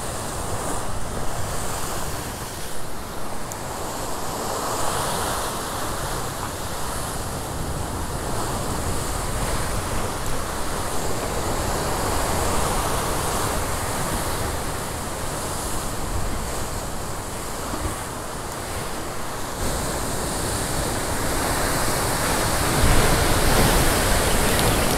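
Ocean surf breaking against rocks and washing back, swelling and ebbing wave by wave, with a louder wave crash near the end.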